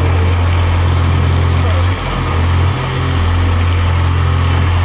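Loud, steady low electronic drone from a sound-design score, its deep tone stepping between a few low notes every second or so, with a hazy wash above it.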